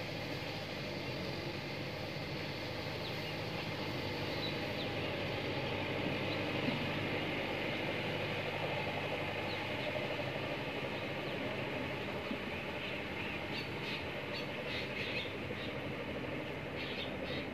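Kubota tractor's diesel engine running steadily under load as it tills a flooded paddy field with a rotary tiller, with a few faint high chirps near the end.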